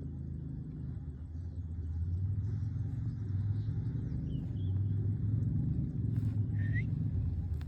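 Low, steady engine-like rumble that slowly grows louder, with a few short rising chirps near the end.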